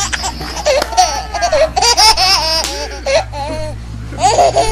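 High-pitched laughter in several bouts, with pitch sliding up and down, over a steady low hum.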